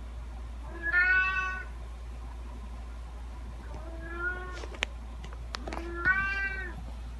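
Domestic cat meowing three times: a loud meow about a second in, a softer one around the middle, and another loud one near the end. A few sharp clicks fall between the last two meows.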